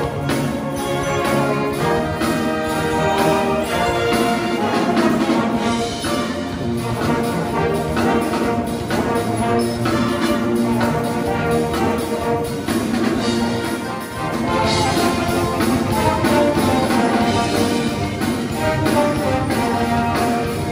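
A military band playing: brass and saxophones carrying the tune over a drum kit keeping a steady beat.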